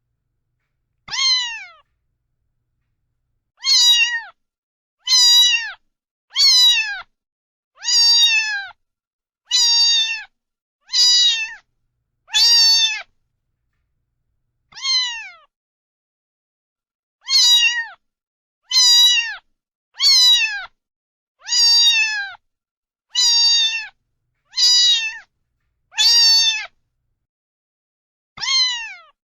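Domestic cat meowing over and over, about seventeen meows of under a second each, every one dropping in pitch at its end, with silent gaps between them.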